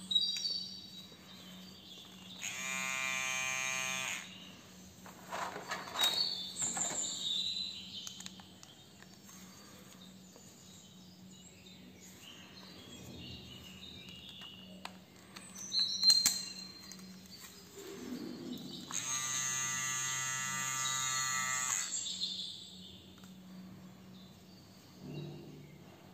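NOVA NHC 8005 electric hair clipper switched on twice, its blade motor buzzing steadily for about a second and a half a couple of seconds in, then for about three seconds later on. Sharp clicks come in between.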